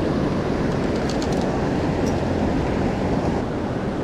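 Loud, steady rush of water pouring through a concrete spillway, a constant low-heavy noise.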